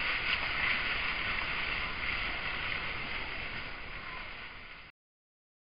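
Steady hiss of forest background noise picked up by a trail camera's microphone, a little louder in the first second, cutting off suddenly near the end.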